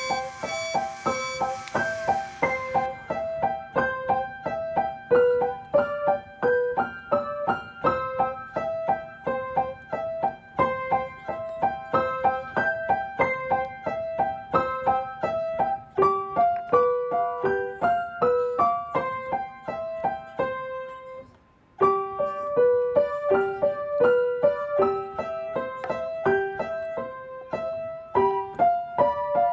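Background piano music: a steady run of light, evenly paced notes that breaks off briefly about two-thirds of the way through, then picks up again.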